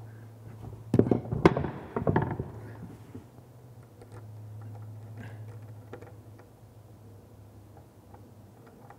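A quick run of sharp knocks and clatter from tools and pipe fittings being handled while fitting a wash basin's supply pipes, about a second in, followed by only small scattered taps over a steady low hum.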